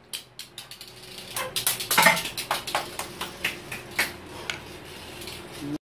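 Toy spinning top clattering and skittering on a tiled floor after being dropped: a rapid, irregular run of sharp clicks and knocks, the loudest about two seconds in, ending abruptly near the end.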